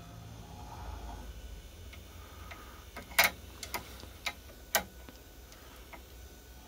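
A few sharp metallic clicks and knocks from the lathe's slide and cross-drill fittings being set by hand, the loudest about three seconds in and three more over the next two seconds, over a faint low hum.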